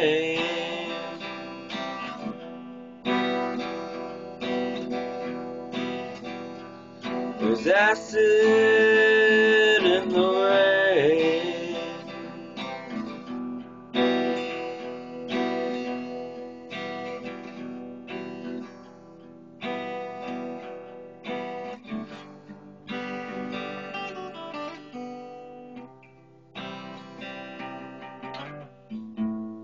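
Acoustic guitar strumming chords in the instrumental close of a song, each group of strokes left to ring and fade before the next.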